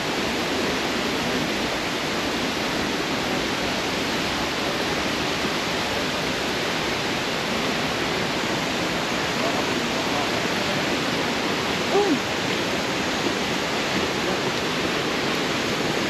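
Steady, even rush of La Fortuna Waterfall's water falling into its pool below.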